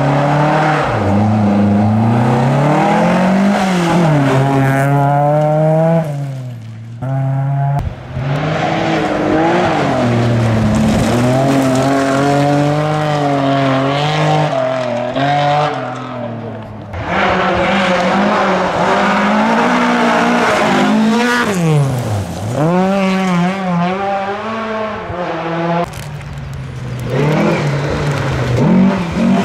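Rally cars on a gravel stage, one after another, among them Volvo 240s: engines revving hard, pitch rising and falling through gear changes and lifts, with tyres scrabbling on loose gravel.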